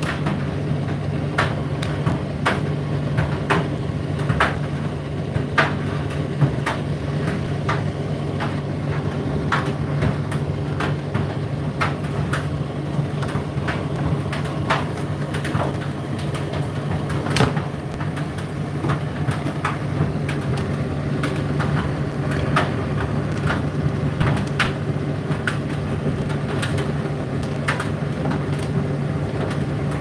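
Indesit IDC8T3 condenser tumble dryer running: a steady low motor and drum hum, with irregular sharp clicks and light knocks from the load tumbling in the drum.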